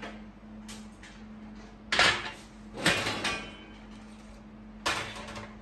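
Stainless steel lids of a double electric deep fryer being lifted off and set down: three metallic clanks with a short ring, the loudest about two seconds in, another about a second later, and a lighter one near the end.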